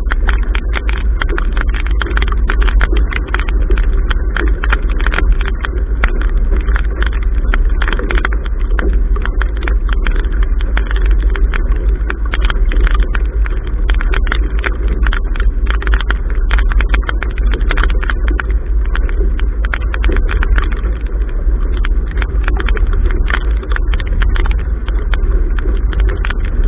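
Strong wind buffeting the microphone of a bow-mounted camera on a sailboat under way: a loud, steady low rumble with constant crackling over it, in adverse weather.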